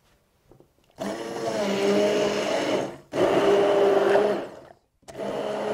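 Stick hand blender puréeing cooked vegetables with a little broth in a tall beaker. The motor runs in three bursts: the first starts about a second in, the second follows after a brief stop around three seconds, and the third starts near the end.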